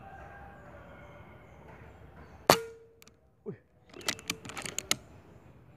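Air rifle shot at a squirrel about two and a half seconds in: one sharp crack with a brief ringing tone after it. A short falling squeak follows about a second later, then a quick run of clicks and rattles.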